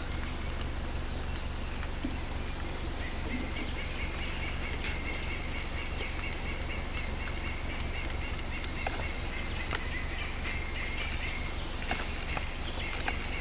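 Forest ambience: a steady hiss with faint high-pitched chirring. A slightly louder high chirring runs from about three seconds in until about eleven seconds, with a few soft clicks.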